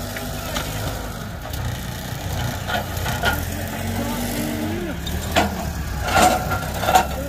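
Genie GTH-5519 telehandler's diesel engine running steadily, its pitch rising briefly a little after halfway, with several sharp knocks and clanks over it.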